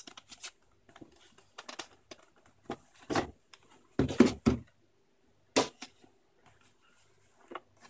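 Cardboard packaging being handled: a black inner box slid out of its printed cardboard sleeve with scraping and rustling, and the boxes set down on a wooden table with a few knocks, the loudest about four seconds in.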